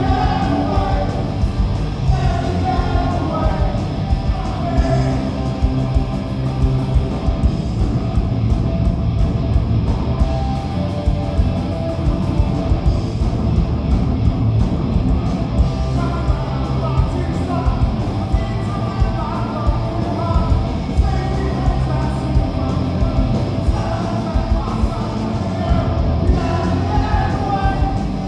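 Live punk rock band playing loud: electric guitars, bass and drums with a male singer on a microphone, the drums hitting in a steady beat, heard through the venue's PA from the crowd.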